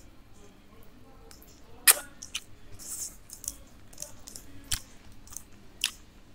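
A man chewing a bite of soft cheeseburger close to the microphone, with sharp wet clicks and smacks of the mouth scattered through, the loudest about two seconds in.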